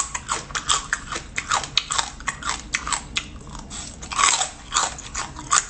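Close-up crunching and chewing of small whole crabs eaten shell and all: a fast, irregular run of sharp crackling crunches as the shells break between the teeth.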